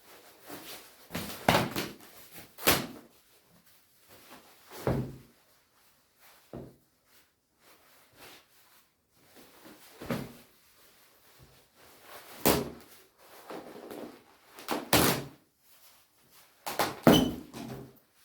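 Shiny down jacket being ripped and handled: about seven sharp tearing, rustling strokes spread over the span, with softer crinkling of the fabric between them.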